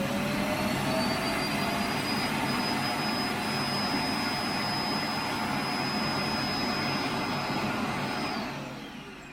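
An electric fan motor, vacuum-cleaner-like, running steadily with a rushing sound and a whine that rises as it spins up. It winds down and stops about eight and a half seconds in.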